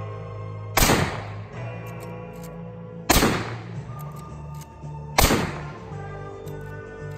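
Three shots from a lever-action .44 Magnum rifle, about two seconds apart, over background music.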